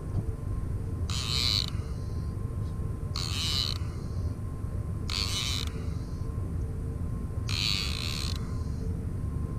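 Okuma Soltera 10 conventional fishing reel buzzing in four short bursts about two seconds apart while a hooked kingfish is being fought on a bent rod.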